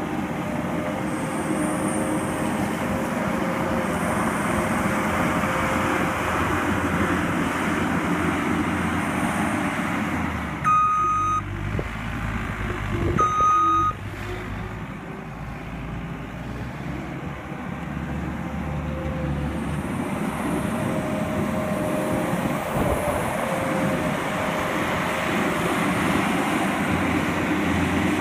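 Skid steer loader's engine running steadily under work, with its backup alarm giving two beeps about eleven and thirteen seconds in.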